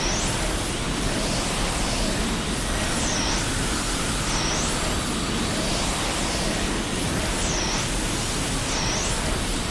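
Steady rushing noise effect, full and even from deep to high, with a high whooshing sweep about every one and a half seconds.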